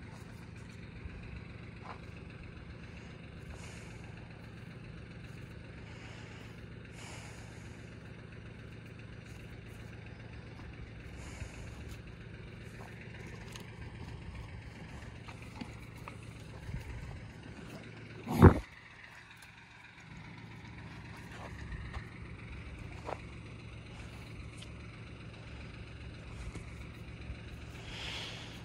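Steady low outdoor rumble with faint scattered ticks, broken about two-thirds of the way through by one short, very loud burst of noise.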